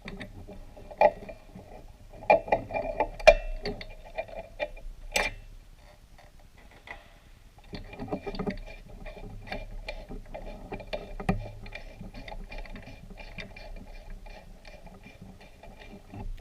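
Hand tools clicking and knocking on an aircraft piston engine's ignition leads and spark plugs, with a few sharp metal clicks early, then a fast, even run of fine ticking from about eight seconds in.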